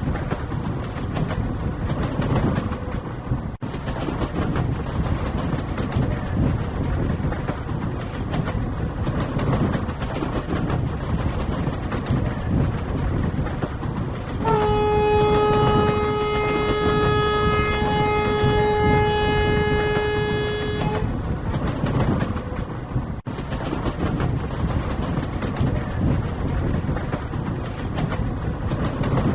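Indian Railways train running with a steady rumble, and about halfway through a single long horn blast lasting around six seconds.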